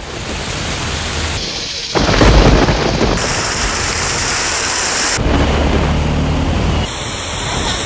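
Heavy rain pouring, with a loud thunderclap rumbling about two seconds in. The rain noise changes abruptly several times.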